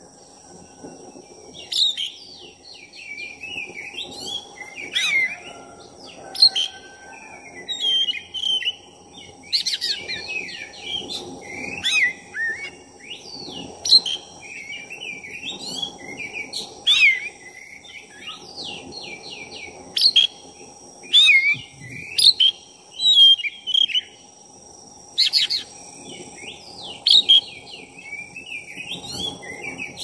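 Black-breasted oriental magpie-robin (kacer dada hitam) singing without a break: a fast, varied run of whistled phrases, chirps and trills, with a loud, sharp note every second or two. A steady high whine runs underneath.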